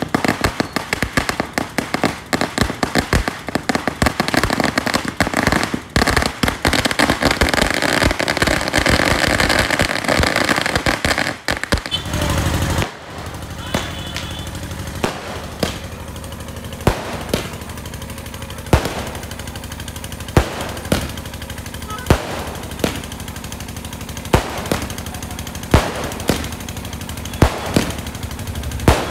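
Fireworks. For about twelve seconds, firecrackers burn on the ground in a dense, rapid crackle. Then, from about thirteen seconds in, an aerial repeater fires single shells into the sky, a sharp crack about once a second.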